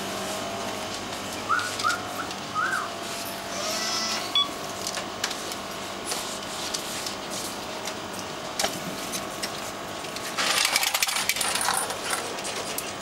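Supermarket checkout background: a steady hum with small clatters. About two seconds in come three short rising squeaks, and a second of loud rustling comes near the end.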